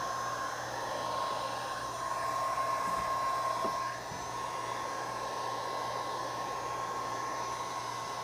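Heat gun on a low setting blowing steadily: a rush of air with a steady whining tone, a little quieter from about four seconds in. It is warming a rubber kayak deck pad to activate its adhesive backing.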